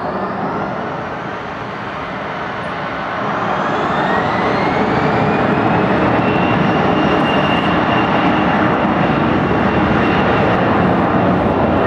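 Airliner jet engines spooling up to takeoff power. A whine rises in pitch over the first few seconds and then holds steady, while the engine noise grows louder about three seconds in and stays loud.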